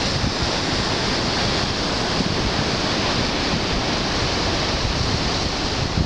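Steady wash of surf breaking on a rocky shoreline, with wind blowing across the microphone in uneven gusts.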